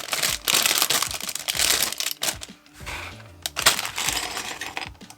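Plastic LEGO parts bag being crinkled and torn open, with small plastic pieces clicking and clattering against each other in irregular handfuls.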